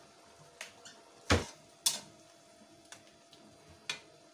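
A metal spoon clinking and knocking against a steel karahi as the pan of jalfrezi is handled and stirred. There are about half a dozen sharp clinks. The loudest two come about a second and a half and two seconds in, and the first of those is a heavier knock.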